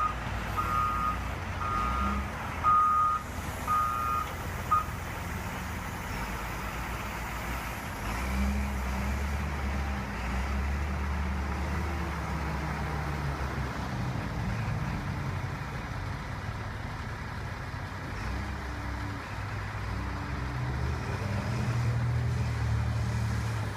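Backup alarm of a heavy construction vehicle beeping about once a second, stopping about five seconds in, over its engine; the engine keeps running with its pitch slowly rising and falling as the machine works.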